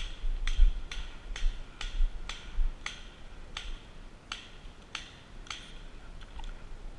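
Paintball markers firing: a string of sharp pops, two or three a second, that thins out and fades after about five seconds, over low rumbling thumps.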